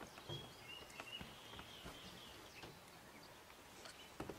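Faint outdoor ambience with a thin, high bird call in the first half and a few light clicks, the sharpest near the end.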